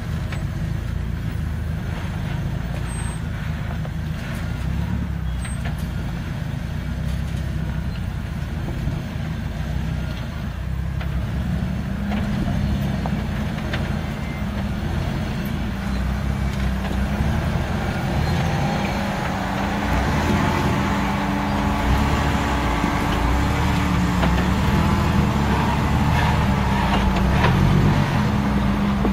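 Jeep Wrangler engines running at low speed as they crawl up a rocky trail, one towing an off-road trailer. The engine note grows louder from about halfway through as a Jeep comes close.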